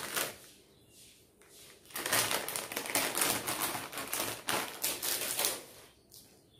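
Plastic packet rustling and crinkling as jewellery is handled and put back into it: a dense run of quick small crackles and clicks, starting about two seconds in and dying away near the end.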